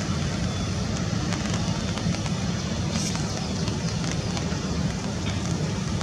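Steady low rumble with a hiss over it, without a break, and a brief high sound about halfway through.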